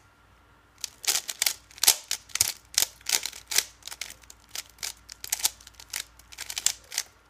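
Rubik's Cube being turned by hand, its plastic layers clicking and clacking in quick bursts of turns. The turning starts about a second in and stops just before the end.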